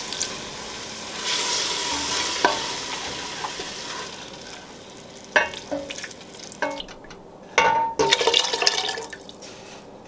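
Leeks and garlic sizzling in butter in a stainless steel pot, with a wooden spoon knocking and scraping against the pot a few times. About three-quarters of the way through, chicken broth is poured in from a glass measuring cup, and the sizzling dies away.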